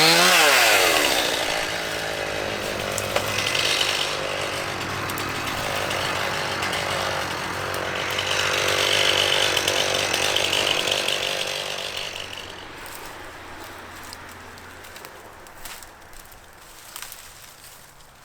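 Two-stroke chainsaw revving and cutting wood, its pitch swinging down and back up near the start. It runs steadily with a harder cutting stretch in the middle, then dies away in the last few seconds, leaving scattered snaps and clicks.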